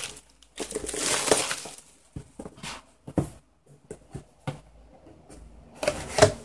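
Plastic wrapping crinkling and tearing as it is pulled off a cardboard box, then scattered sharp clicks, knocks and rustling as the box and its contents are handled.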